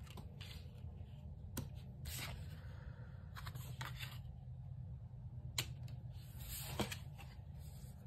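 Tarot cards being handled and laid on a wooden tabletop: soft swishes of cards sliding and a few sharp clicks as cards are set down, over a steady low hum.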